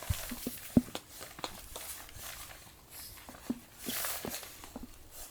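Footsteps and handling noises: scattered short knocks and clicks, with a brief rustle about four seconds in.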